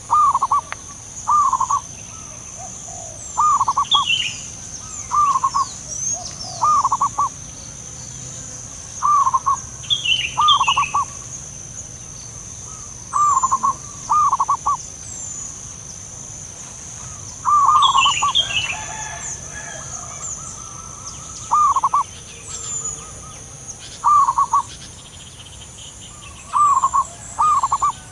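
Zebra doves cooing: short, rolling phrases, often in pairs, repeating every one to three seconds. Fainter high chirps from other small birds and a steady high whine run underneath.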